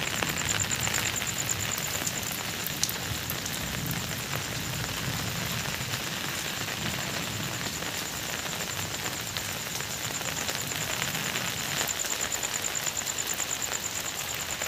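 Steady rain falling, an even hiss, with a thin high-pitched pulsing tone running over it.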